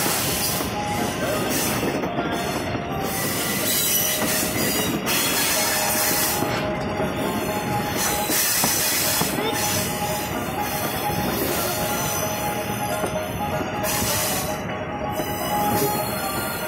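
Passenger train cars rolling around a curve, heard from an open coach window: a steady rumble of wheels on the rails with thin, high wheel squeal coming and going.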